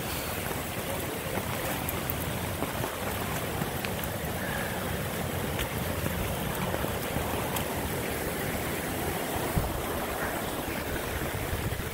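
Steady rushing of floodwater, with wind buffeting the phone's microphone.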